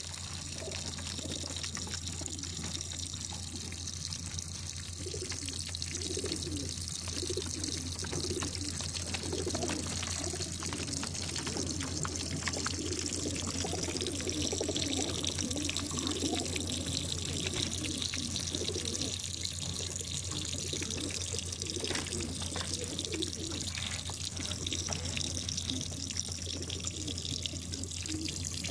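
Water running and trickling along the drinking trough of a racing-pigeon transport trailer as the birds are watered, over a steady low hum.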